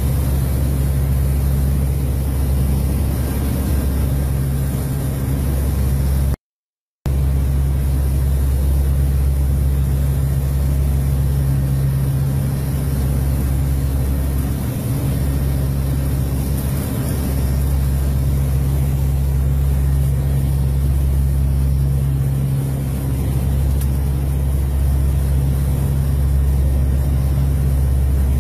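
Aircraft engines droning steadily, heard inside the cockpit as a constant deep hum with a faint hiss over it. The sound cuts out completely for about half a second a little after six seconds in.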